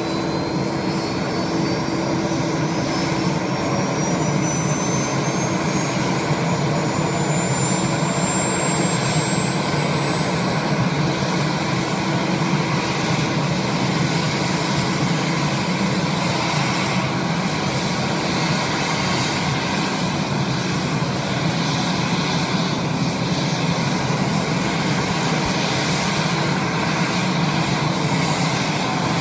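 Sea King rescue helicopter's turbine engine spooling up on the ground before the rotors turn: a high whine rising steadily in pitch for about ten seconds, then holding at a steady pitch over a constant running rumble.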